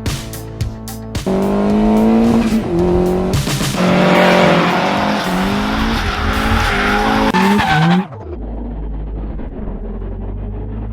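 A car engine revving hard, its pitch climbing and dropping in steps as it shifts, with tyre squeal. It takes over from music about a second in and cuts off suddenly about eight seconds in, leaving a low steady rumble.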